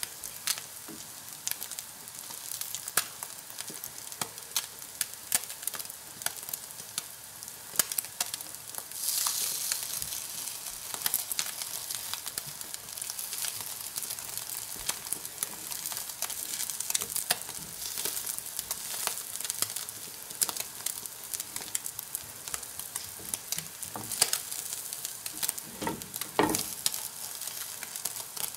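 Whitebait patty bound with egg frying in butter in a non-stick pan: a steady sizzle dotted with many small pops and crackles, growing louder about nine seconds in. A plastic slotted spatula scrapes and knocks against the pan now and then, most plainly near the end.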